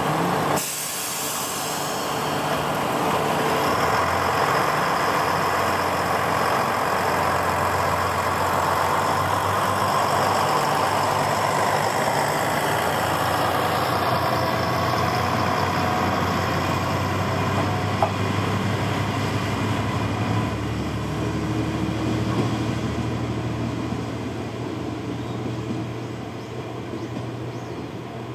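JR Shikoku 1000 series diesel railcar pulling away from a station. A loud air hiss cuts off abruptly just after the start, and then the diesel engine runs steadily under load. The sound slowly fades over the last few seconds as the railcar moves off.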